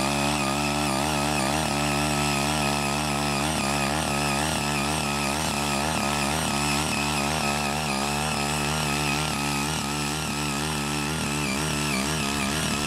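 CHING YEE CY80 mini cultivator's small engine running steadily under load while its rotary tines churn through grassy soil, the engine note wavering slightly as the load varies.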